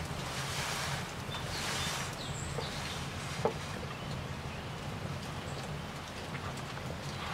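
Wood fire crackling under a cast iron pan, a steady hiss with scattered small crackles and one sharp pop about three and a half seconds in.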